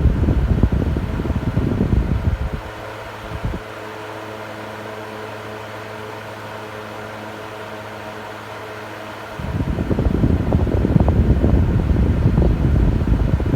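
Fan running with a steady hum. A loud low rush of moving air is there at first, drops away after about two and a half seconds, and comes back after about nine and a half seconds.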